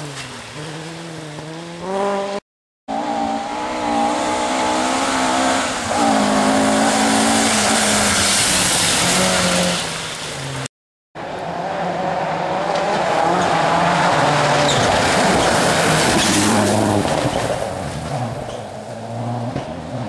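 Mk2 Ford Escort rally cars at full throttle on a loose gravel stage, one after another: the engine note climbs and drops through gear changes, with gravel and spray hissing from the tyres. The sound breaks off twice for a moment between passes.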